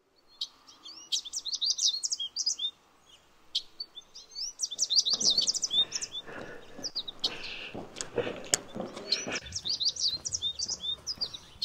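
Small birds chirping busily in quick, high, rising calls, with a short pause about three seconds in. From about five seconds in, a low rustling noise with a few knocks runs beneath the chirping for several seconds.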